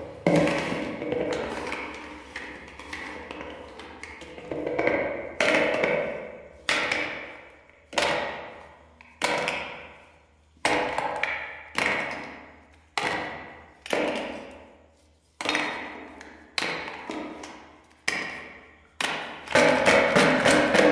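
Hard plastic toy fruit pieces clattering into a plastic bowl one after another, about one sharp tap a second, each ringing briefly as it fades, with a quicker flurry of clatter near the end.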